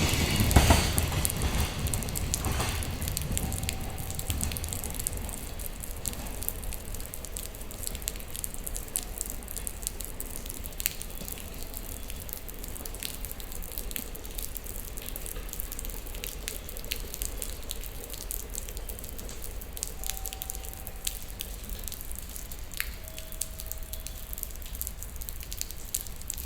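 Container freight train's wheels clacking over rail joints, fading away within the first few seconds as it moves off. A steady low rumble stays, with scattered faint clicks and a few brief faint tones.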